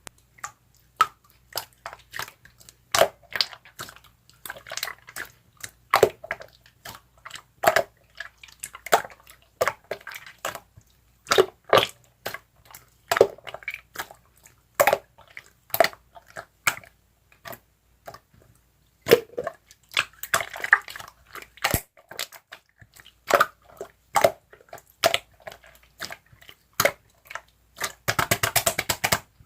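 Slime being squeezed and pressed by hand, giving sharp wet pops and clicks one or two a second with softer squishing in between, and a dense crackling run near the end.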